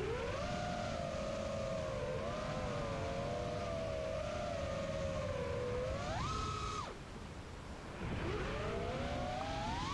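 Armattan Chameleon Ti FPV quadcopter's brushless motors and Demon 5045 props whining in flight, the pitch wavering with the throttle. About six seconds in the whine climbs sharply and holds high for a moment, drops off about a second later, then climbs again steadily near the end.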